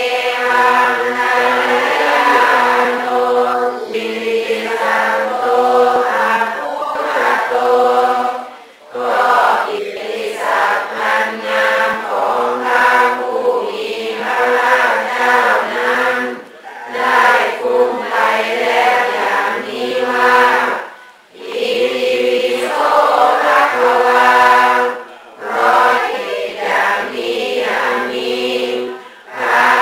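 Voices chanting in unison on mostly level pitches, in long phrases broken by short breath pauses every few seconds.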